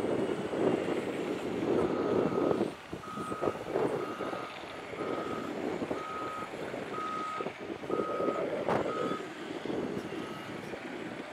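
Wheel loader's reversing alarm beeping about once a second, eight even beeps at one pitch, over its diesel engine running. A single sharp clank sounds near the end of the beeping.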